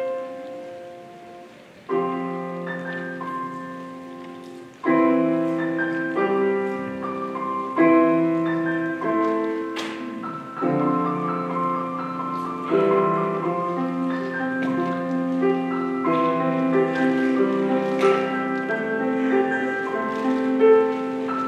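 Piano playing a slow instrumental passage: chords struck every two or three seconds and left to ring and fade, after the last sung line of the song.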